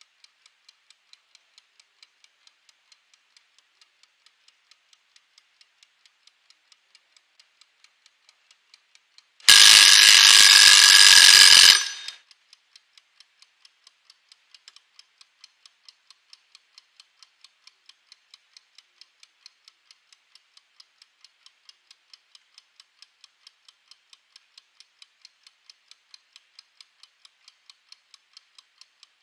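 Mechanical wind-up kitchen timer ticking steadily. About nine and a half seconds in, its bell rings for about two and a half seconds as the 15-second countdown runs out, then the ticking goes on.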